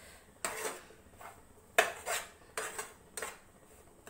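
A spatula scraping and knocking against a frying pan, with several irregular strokes, as dry gram flour (besan) is stirred and roasted in the pan.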